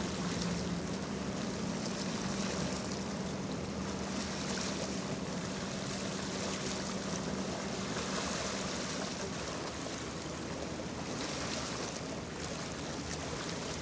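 Steady low hum of a passing Legend-class Coast Guard cutter's machinery over a wash of wind and water noise; the hum fades about two-thirds of the way through.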